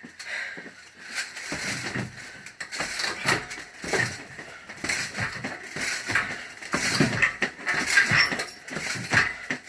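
A rapid, irregular run of hard strikes thudding against a training target, as in close-in elbow and knee work.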